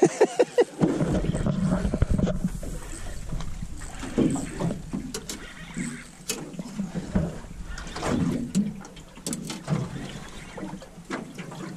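Sounds aboard a small aluminium boat on open water: a steady low rumble of wind and water against the hull, scattered knocks as people move about the deck, and brief snatches of voice near the start.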